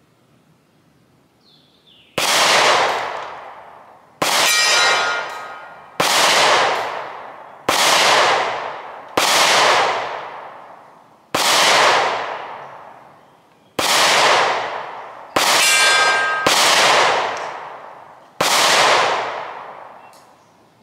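Ten pistol shots from a 9mm SIG Sauer P365, fired singly about two seconds apart, each echoing away for over a second: a full 10-round magazine emptied at the target.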